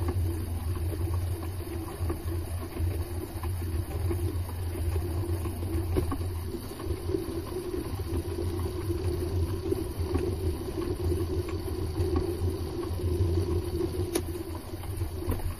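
Mini metal lathe running steadily, a low motor hum with a higher drone from the drive as the chuck spins.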